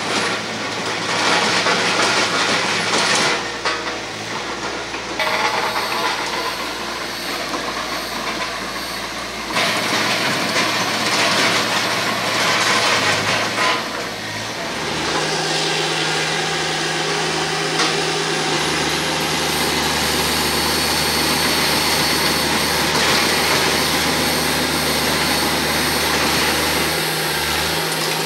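TYM compact tractor running under load with its rear rotary tiller churning through hard, dry clay on a ditch bank, a loud mechanical rumble and rattle. The sound changes abruptly a few times, and from about halfway through settles into a steady engine drone.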